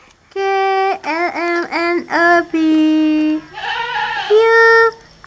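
A young child singing in a high voice: a string of short notes, then a longer, lower held note about halfway through.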